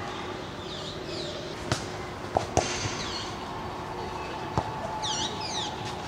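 A football being kicked, sharp thuds four times, the loudest two close together about two and a half seconds in, while small birds give short repeated chirps.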